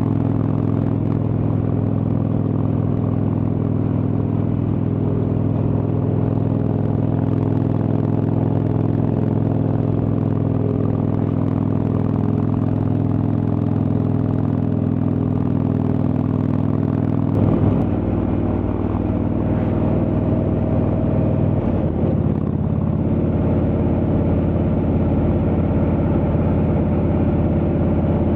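Indian Chieftain's Thunder Stroke 111 V-twin running steadily under way through a Freedom Performance aftermarket exhaust. The engine note changes abruptly twice, about two-thirds of the way through, as the gears are shifted.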